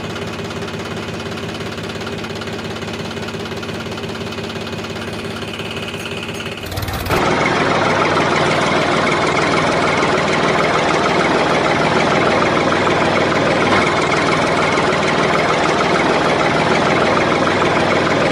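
Tractor engine running steadily; about seven seconds in it cuts abruptly to a louder, busier engine sound.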